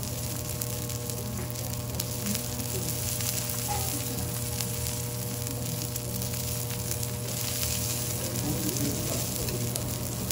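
Thick wagyu steak sizzling steadily as it sears in its own fat on a hot flat steel teppanyaki griddle, with many small crackles through the hiss. A steady low hum runs underneath.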